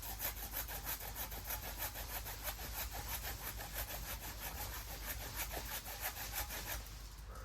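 Hand saw cutting through the trunk of a cherry tree in quick back-and-forth strokes, about four a second. The sawing stops shortly before the end.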